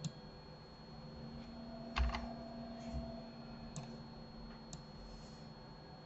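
A handful of separate computer keyboard and mouse clicks, a quick pair about two seconds in, over a faint steady hum.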